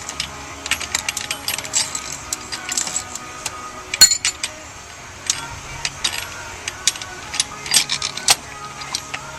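Metal hand tools and steering wheel puller parts clinking and clicking irregularly, with one sharper metallic clank about four seconds in.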